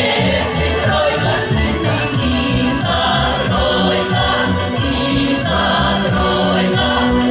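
Russian folk choir singing a fast song together, many voices at once.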